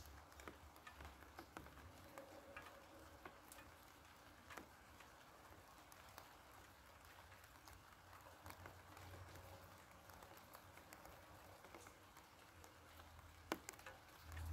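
Faint light rain: scattered raindrops pattering on garden leaves, with one sharper drip shortly before the end.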